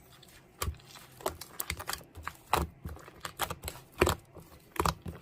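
Typing on a keyboard: irregular quick key clicks, several a second.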